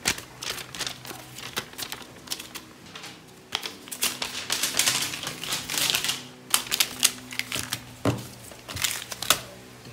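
Plastic wrap and bubble wrap crinkling and crackling as they are handled and pulled open, in quick irregular clicks, with a denser stretch of crinkling in the middle.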